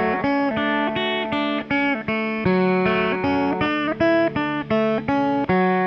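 Instrumental passage of a song: a guitar picking a melody of single notes, about three a second, over a held low note.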